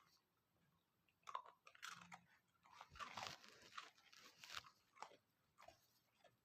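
Faint crunching and chewing of a hard biscuit, a run of short crackly bites that starts about a second in and is densest in the middle.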